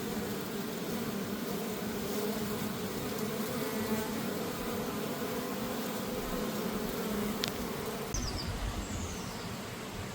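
Honeybees buzzing in flight around a beehive, a steady hum that fades about eight seconds in as a low rumble takes over.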